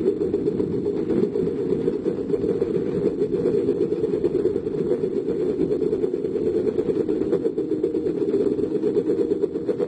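Diesel engines of heavy construction machinery running steadily, a dense low rumble.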